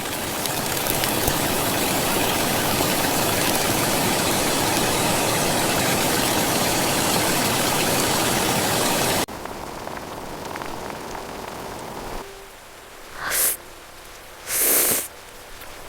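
Steady heavy rain that cuts off abruptly about nine seconds in to a lighter rain. Near the end, two short hissing bursts break over it, the second a little longer.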